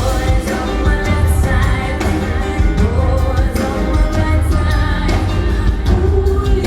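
Live band music: a woman singing over a strong, steady bass and drum beat.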